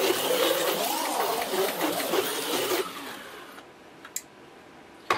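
HO-scale Viper V1 slot car with a 2.5-ohm outlaw armature running laps on a plastic track: the small electric motor's whine and the car's rattle in the slot, rising and falling through the turns. It stops abruptly about three seconds in, followed by a sharp click near the end.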